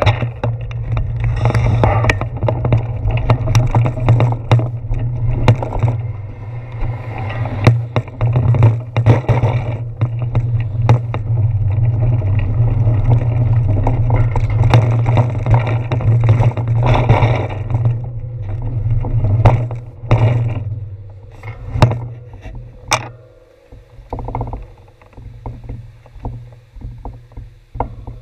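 Bicycle riding noise picked up through a handlebar-mounted GoPro Hero 4 in its housing: a steady low rumble from the tyres and bars on concrete sidewalk, with sharp knocks as the wheels cross the pavement joints. The rumble dies down over the last few seconds as the bike slows to a stop.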